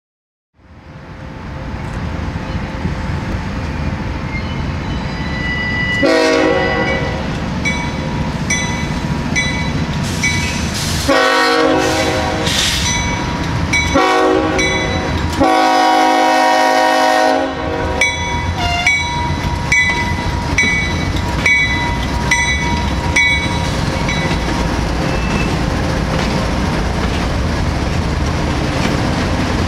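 Union Pacific diesel locomotive approaching and passing a grade crossing, sounding its air horn in the crossing pattern of four blasts, the last one held longest. A bell rings about once a second through the middle of the passage, over the steady rumble of the engine and rolling train.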